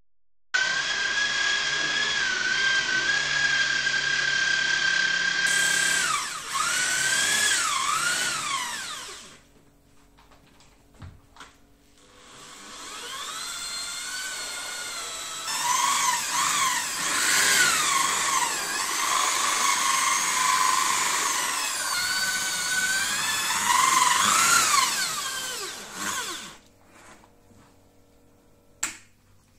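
Handheld electric rotary brush scrubber whining as it spins, its pitch dipping and recovering again and again as it works the upholstery shampoo. It runs for about eight seconds, stops, then winds back up and runs about fourteen seconds more before cutting off.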